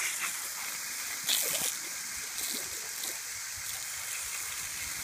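A jet of water from a hose hissing steadily as it sprays across grass, with a few louder splashes as a bullmastiff bites and laps at the stream, the biggest about a second and a half in.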